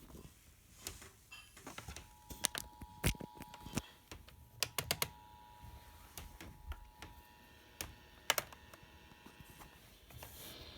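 Faint Emergency Alert System attention signal, a steady two-tone beep just under 1 kHz, sounding from about two seconds in and stopping shortly before the end, under irregular louder clicks and taps like keys or buttons being pressed. Near the end a light hiss rises.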